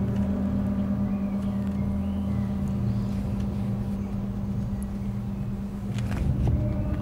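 A low, steady droning hum throughout, with a short rustling noise about six seconds in.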